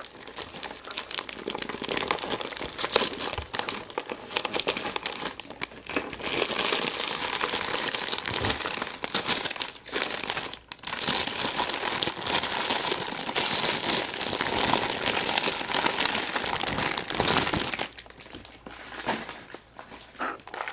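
Wrapper of a giant surprise egg being crinkled and torn off by hand, a dense crackling that grows fuller and louder about a third of the way in, pauses briefly in the middle, and dies down near the end.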